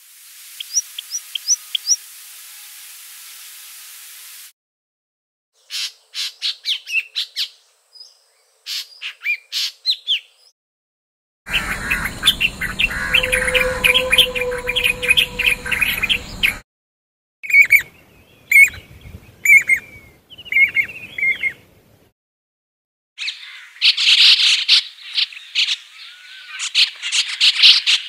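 Bird calls and songs from several different birds, heard in short separate recordings one after another with brief silent gaps between them. Near the start there are thin chirps from a pipit, and about halfway through a white-browed bulbul sings a dense run of notes.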